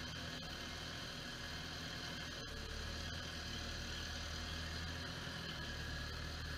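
Deutz-Fahr Agrofarm 410T tractor's diesel engine running steadily as the tractor manoeuvres with its front loader; about two and a half seconds in there is a click and the engine's low note grows stronger.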